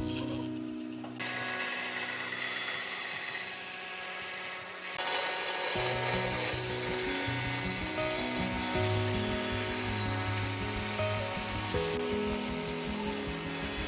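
Band saw cutting through a wooden board along a curve, a steady hiss of the blade in the wood, with background music.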